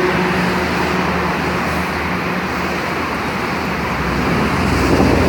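Bus engine running with a steady droning hum that fades out about halfway through. Louder engine and road noise swells near the end.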